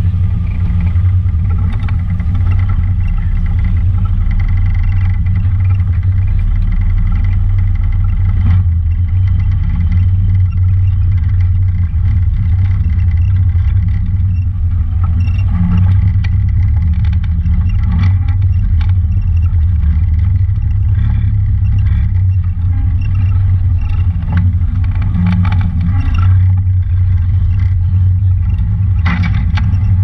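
Honda Talon 1000 side-by-side's parallel-twin engine running steadily as it drives a rough dirt trail, giving a deep, even drone. A few sharp knocks and rattles come from the machine going over bumps.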